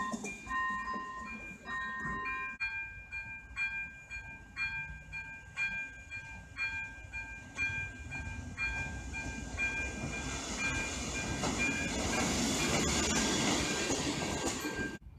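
Level-crossing warning signal ringing about once a second while a ČD Regionova diesel railcar approaches and passes, its rumble growing loud over the last few seconds. In the first couple of seconds a different crossing's faster two-tone warning sounds as a train runs past.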